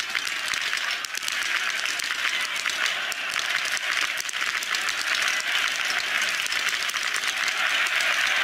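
Stadium crowd applauding and cheering in a steady wash, with many sharp cracks scattered through it from the shooting range, where athletes are firing small-bore biathlon rifles. The crowd noise swells slightly about a second in.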